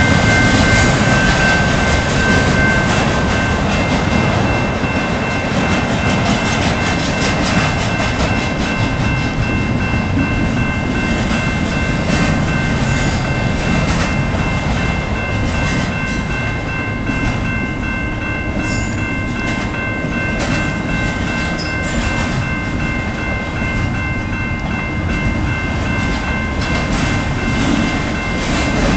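CN intermodal freight train's cars rolling past close by, a steady rumble with wheel clatter on the rails. The grade crossing's warning bell rings steadily throughout.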